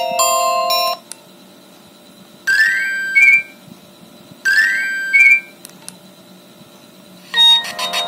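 Nokia 1600 ringtone previews from the phone's speaker as the ringtone list is scrolled. One melody cuts off about a second in, then two identical short rising chime phrases play with pauses between them, and a new, busier tone starts near the end.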